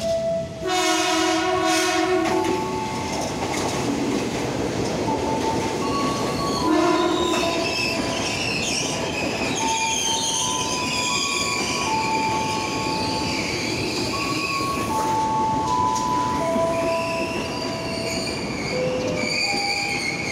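Electric trains moving through a station. A horn sounds briefly near the start, then wheels squeal in held tones that jump from pitch to pitch over a steady rolling rumble.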